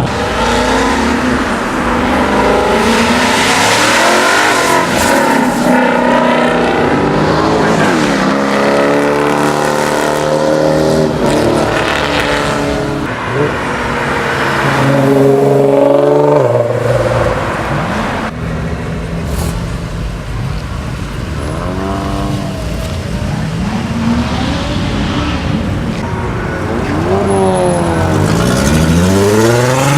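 Car engines revving and accelerating, their pitch rising and falling again and again as cars drive past.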